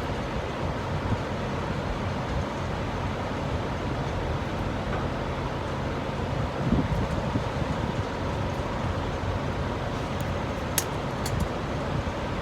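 Steady low vehicle rumble, with a dull bump about midway and a few sharp small clicks near the end.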